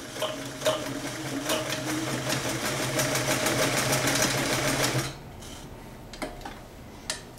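Vintage Sears Kenmore sewing machine running steadily while sewing a full-width zigzag stitch through denim. It stops suddenly about five seconds in, and a couple of light clicks follow.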